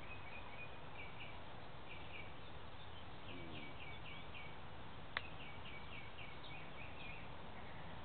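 Small bird chirping in several quick runs of short, high notes over a steady outdoor hiss, with one sharp click about five seconds in.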